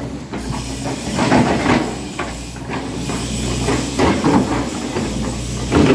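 Tracked excavator's diesel engine running steadily, with scattered knocks as its bucket backfills a trench with soil.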